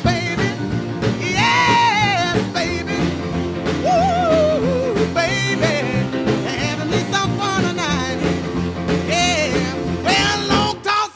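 A song with a lead singing voice over a band accompaniment.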